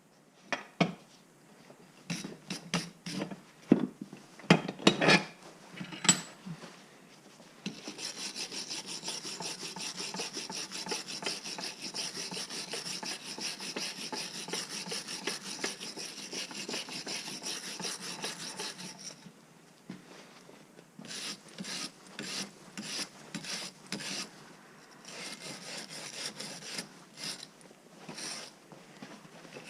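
Wire brush scrubbing the rusty, WD-40-soaked metal body of an old Ridgid pipe wrench. A few sharp knocks of handling come first, then about ten seconds of fast, continuous scrubbing, then a run of separate short brush strokes.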